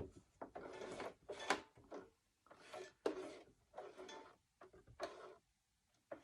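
Domestic sewing machine stitching in short, slow bursts, about six or seven runs of a half-second or so with brief stops between them, as the fabric is turned while stitching around an appliqué edge.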